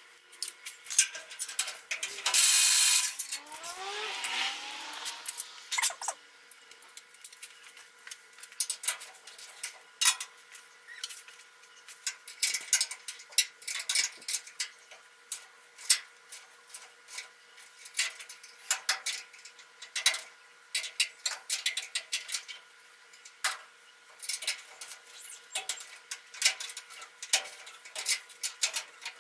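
Hand ratchet wrench clicking in short quick runs, with scattered metal clinks, while bolts are worked loose on an old pickup's bed and frame. A loud hiss lasting about a second comes about two seconds in.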